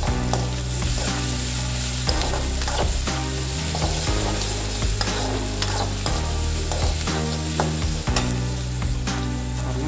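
Slotted metal spoon stirring and scraping chopped onions in a hot aluminium kadai, the onions sizzling in oil as they sauté, with repeated scrapes of the spoon against the pan. Low steady tones underneath change pitch in steps every second or so.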